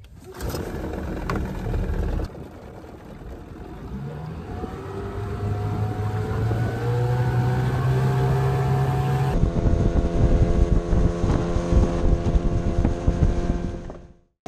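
Outboard motor on a small aluminium fishing boat running under way, its pitch rising as it is throttled up. From about nine seconds in, a louder rush of wind and water with repeated knocks as the hull runs over the waves.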